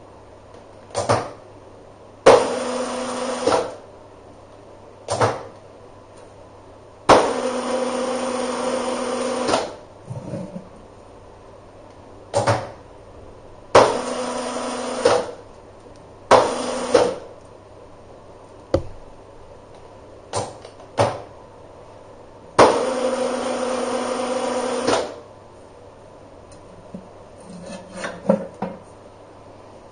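TIG welder arc in pulse mode buzzing on and off in a series of bursts: several short tacks of under a second and four longer runs of about one and a half to two and a half seconds, each starting sharply with a crack and holding a steady pitched buzz until it cuts off.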